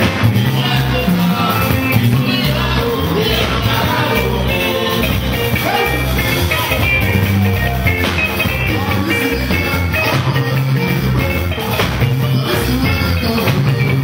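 Live band music: electric guitars and a drum kit playing a steady dance beat over a moving bass line, with a lead vocal.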